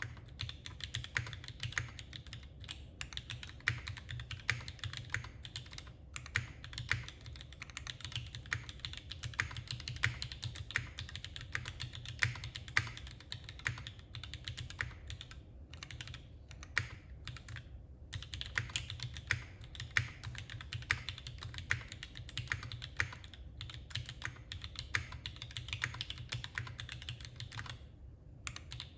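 Continuous fast typing on a custom mechanical keyboard with Gateron Yellow linear switches and GMK Laser keycaps, a dense run of key clacks with a few brief pauses.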